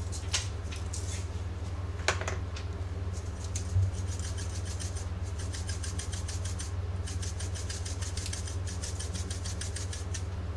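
A few scattered ticks, then a hand-twisted pepper grinder clicking rapidly and evenly for several seconds as it grinds pepper. A steady low hum runs underneath.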